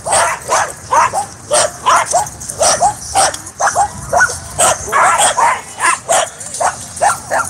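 Dogs barking and yipping in quick succession, about three calls a second, during rough play.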